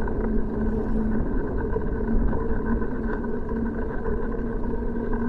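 Steady riding noise of a bicycle moving along a paved bike path: tyres rolling on asphalt and wind on the microphone, with a steady hum underneath.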